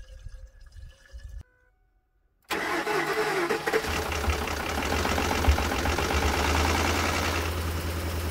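Ford 5.4L V8 of an F-250 being cranked and starting about two and a half seconds in, then settling into a steady idle. This is its first start after a cylinder head replacement, run to see whether it will fire.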